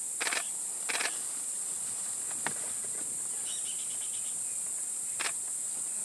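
Steady high-pitched chirring of insects, with a few short rustling scrapes of an impala carcass being dragged by a leopard over dry leaves and ground. The scrapes come about a third of a second in, at one second, and just after five seconds, with a single sharp tick between them.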